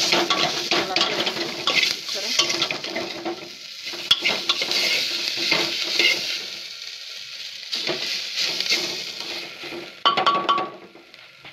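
Metal ladle stirring and scraping onions and whole spices frying in oil in an aluminium pressure cooker, over a steady sizzle. The stirring stops about a second before the end.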